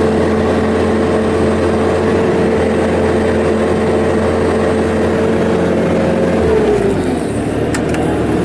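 Bobcat T650 compact track loader's diesel engine running steadily at high revs with a steady whine over it, the pitch falling about six and a half seconds in as the revs come down, then running on lower.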